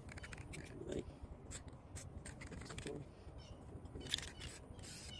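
Faint rustling and scraping from hands arranging a mesh netting stencil over a rifle lying on cardboard, with scattered light clicks and a few brief hissy bursts about four seconds in.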